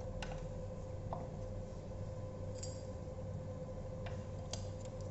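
A handful of light, scattered clicks and taps as hands handle wires, connectors and plastic parts on a bike frame, over a steady background hum.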